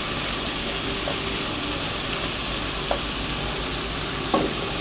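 Onions, tomatoes and spices sizzling steadily in oil and butter in a pot while being stirred, with a few light clicks.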